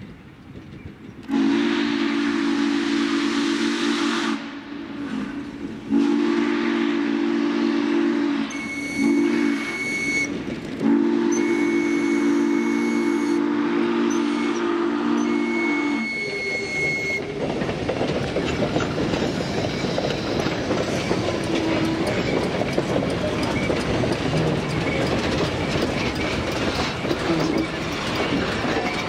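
Norfolk and Western 611 steam locomotive blowing its deep chime steam whistle in four blasts: long, long, short, long, with a thin high tone ringing under the later ones. After the whistle, a steady rumble and clickety-clack of the locomotive and cabooses rolling close past.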